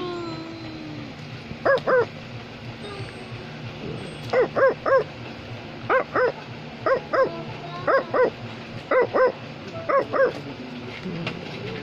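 Dog-like barking in quick yip-yip pairs: seven groups of two short high barks, one of them three, coming about once a second in the second half, after a falling whine near the start.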